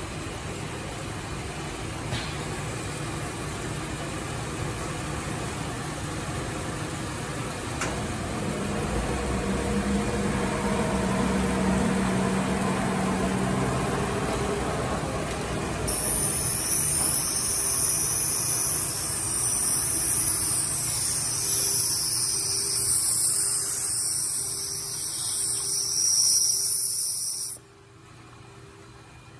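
Steady mechanical hum of a die-sinker EDM machine and its dielectric fluid system running. About halfway through, a loud high hiss joins in and then cuts off suddenly near the end.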